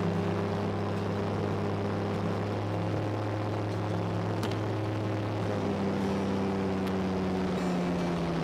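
Aeroprakt A-20 ultralight's engine and propeller in flight, heard from the cockpit as a steady drone whose tone shifts slightly a few seconds in and again near the end.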